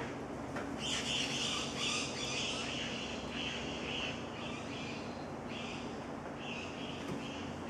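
A bird in the canopy giving a run of raspy, scratchy calls, about two a second, starting about a second in. A steady low hum runs underneath.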